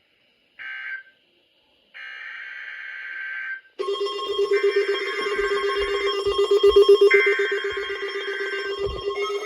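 NOAA Weather Radio test signal heard through a weather radio receiver. Short bursts of shrill digital data tones come first, then from about four seconds in a steady warning-alarm tone with a pulsing buzz under it, the data bursts repeating twice over it.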